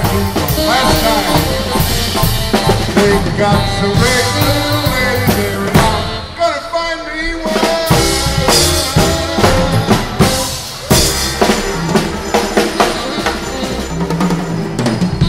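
Live band playing an upbeat number with drum kit, trumpets and keyboard, with a male singer singing into a microphone.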